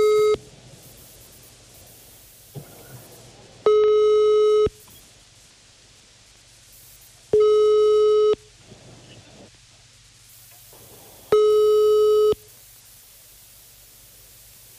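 Telephone ringback tone: a steady tone lasting about a second and repeating about every four seconds, three times plus the end of one at the start. It means an outgoing call is ringing and waiting to be answered.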